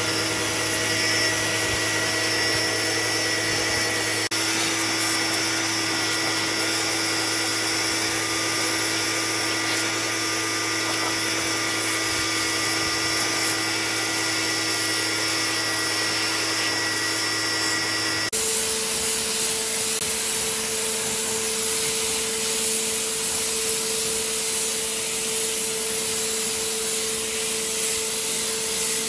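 A power tool's electric motor running at a steady speed. About 18 seconds in, the sound changes abruptly to a different steady hum with more hiss.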